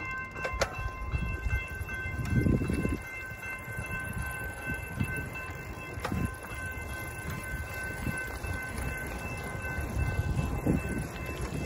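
Railroad grade-crossing warning bell ringing steadily, stopping shortly before the end, over a low rumbling noise.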